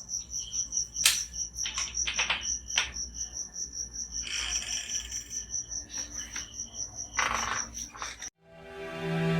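Crickets chirping, a steady high pulsed chirp repeating several times a second, with a few clicks and rustles over it. It cuts off sharply near the end and music fades in.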